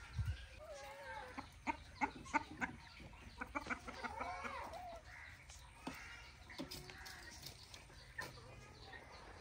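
A hen clucking: a quick run of short clucks with a couple of longer wavering calls, one about a second in and one around four seconds in.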